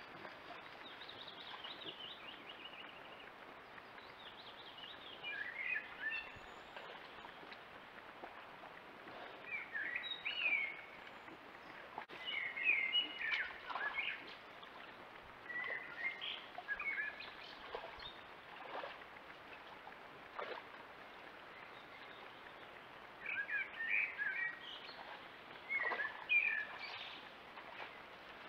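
Small birds singing in short, repeated phrases of quick high chirps, over a steady faint hiss of running water.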